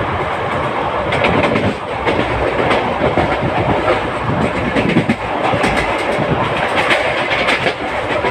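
Passenger coach of a moving train, heard from on board: a steady loud rumble of the running gear with irregular clicks and clatter of the wheels over the rail joints.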